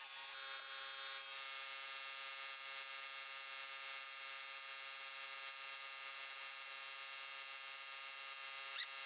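Handheld angle grinder fitted with a sanding disc running at steady speed, a constant electric motor whine with no change in pitch, as it sands a metal motorcycle bracket down for repainting.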